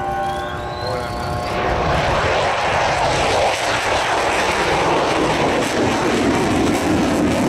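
Mitsubishi F-2 fighter jet's single turbofan engine. A jet roar builds about a second and a half in and stays loud, deepening in pitch as the jet passes and climbs away.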